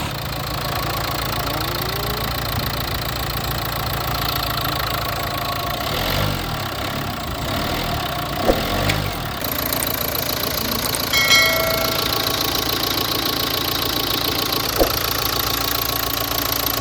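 2015 Nissan Qashqai engine running steadily at idle after starting, a sign that the fuel-line airlock that kept it from starting has been cleared. A short beep sounds about eleven seconds in, and there are two sharp clicks.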